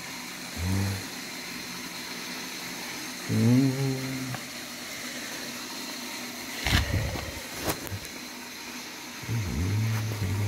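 A man's voice murmuring or humming briefly three times, with no clear words, and two sharp knocks about two-thirds of the way through, over a steady hiss.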